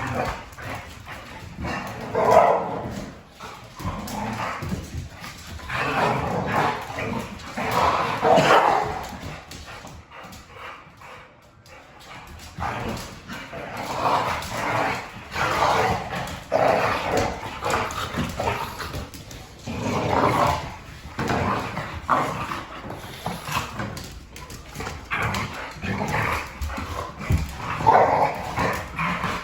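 Pit bull-type dogs barking and whining in repeated short bouts, with a brief lull about ten seconds in.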